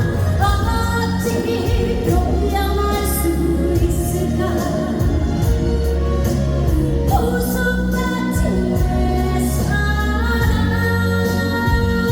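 A woman singing a Korean trot song over a loud backing track with a steady bass line, holding long notes several times.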